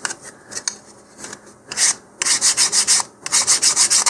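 Hand sanding the edge of a basswood rocket fin with 100-grit sandpaper on a sanding block, knocking down the sharp corner of the leading edge. A few separate scrapes, then quick back-and-forth strokes several a second from about two seconds in, with a brief pause just after three seconds.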